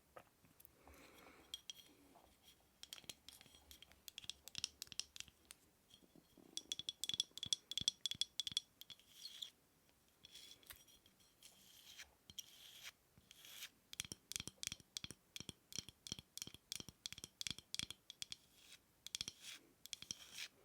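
Rapid runs of light taps and scratches on a small hard object that rings faintly with each tap, played close to the microphone as ASMR tapping. The tapping comes in quick bursts, densest a few seconds in and again in the second half.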